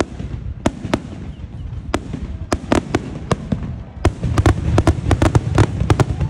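Aerial fireworks shells bursting in quick, irregular succession: sharp bangs over a low rumble. The bangs grow denser and louder about four seconds in.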